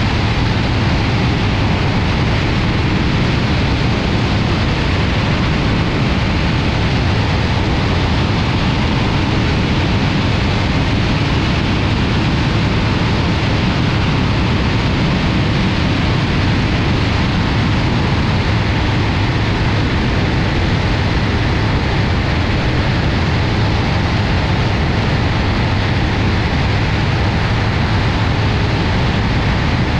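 BRM Citius ultralight's engine and propeller running steadily in flight, under a heavy, even rush of wind over the microphone.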